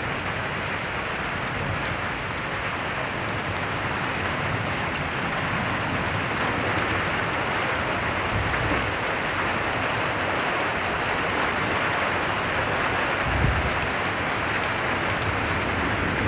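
Steady rain falling on leaves, an even hiss of drops, with one short low thump near the end.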